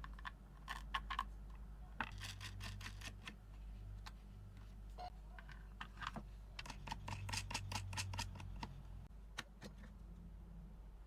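Faint rapid clicking and scratching in two runs, one about two seconds in and a longer one past the middle, with a few single clicks between them.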